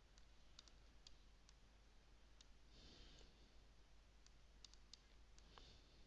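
Faint computer mouse clicks, about a dozen, scattered irregularly over near-silent room tone.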